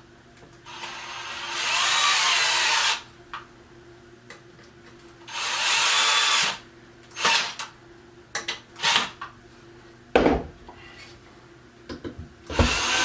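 Cordless drill-driver running in bursts as screws are driven into the particleboard drawer panels: two longer runs of a second or two, several short blips, and a dull knock about ten seconds in.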